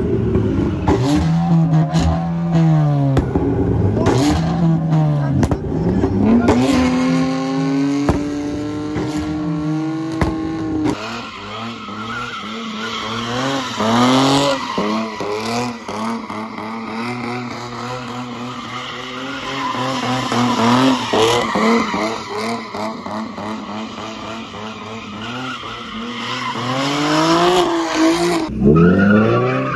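A car doing donuts or drifting: the engine revs up and down over and over while the tyres squeal against the pavement. Partway through the engine climbs and holds high for a few seconds before the rapid rev swings resume.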